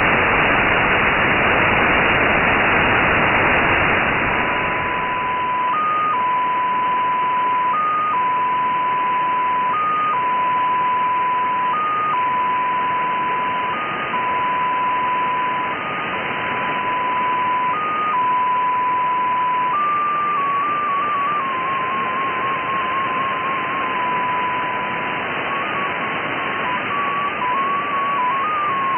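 Shortwave radio hiss, then the Russian XPA2 data station heard in upper sideband. It holds a steady tone that steps briefly to a higher pitch every two seconds, and from about two-thirds of the way through it hops rapidly between several pitches as it sends data.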